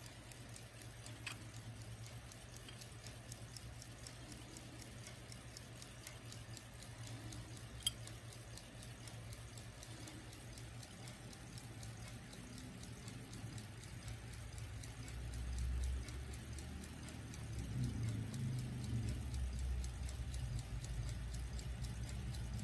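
A 1957 Westclox Scotty pocket watch's pin-pallet movement ticking rapidly and evenly, with its case back open. There is a sharp click about eight seconds in, and a low rumble swells over the second half.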